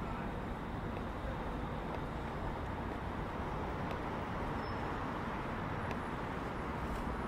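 Steady outdoor city background noise: an even, continuous rumble and hiss with no distinct events, broken only by a few faint ticks.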